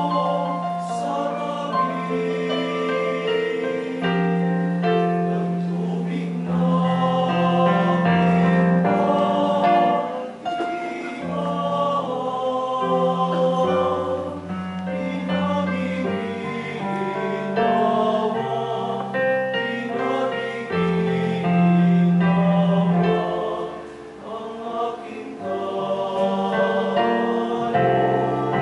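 A choir singing a hymn over instrumental accompaniment, with held bass notes that change every second or two.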